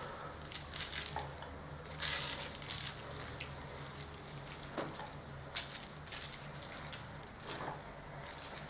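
Dry spice rub being sprinkled by hand over raw pork belly slices on butcher's paper: faint scattered rustling and crinkling of the paper under the hand and falling spice, louder about two seconds in, with one sharp click about five and a half seconds in.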